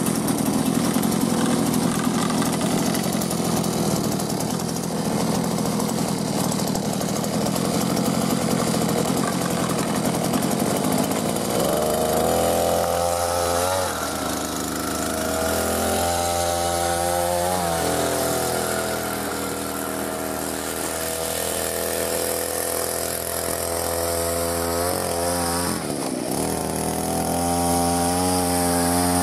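Small petrol engine of a compact tracked snow vehicle running while it tows a rider on skis over snow. About twelve seconds in its note becomes clear, and the pitch rises and falls several times as the throttle is worked.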